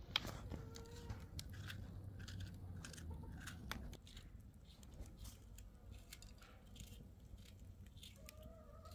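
Small knife cutting a green bell pepper held in the hand: a string of faint, crisp cuts and clicks.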